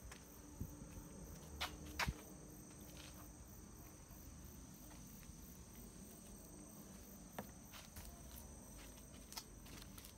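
Faint steady high-pitched chirring of insects in the background, with a few sharp clicks, the loudest about two seconds in.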